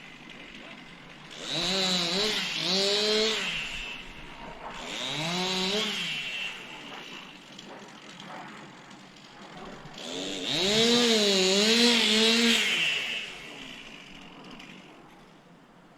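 Chainsaw engine revved in bursts between idling: two quick revs about a second and a half in, another about five seconds in, and a longer, loudest rev from about ten to thirteen seconds, then easing back to a low idle.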